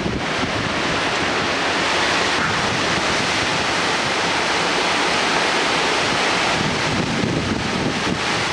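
Strong thunderstorm wind gusting steadily through trees, with wind buffeting the microphone; the buffeting is heavier near the end.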